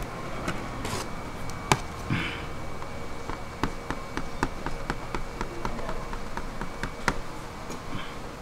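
Edge of a metal scraper tapped repeatedly into cooling sugar on a galvanized metal sheet as ridges are pressed into a sugar-painted fish's fins: a run of sharp clicks at about three a second, with a single louder click before it.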